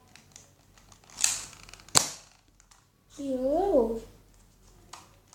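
Nerf Firestrike dart blaster being reloaded and primed: a short sliding rasp about a second in, then one sharp plastic click, with a fainter click near the end.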